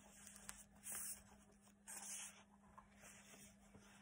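Faint rustling of paper and card pages being turned and handled by hand, in a few short brushes about a second apart.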